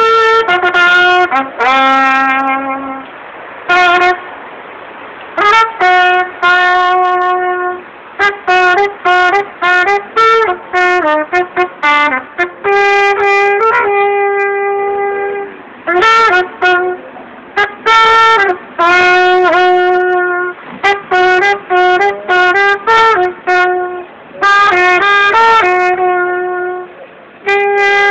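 Solo trumpet playing a melody of short notes and longer held notes, in phrases with brief pauses between them.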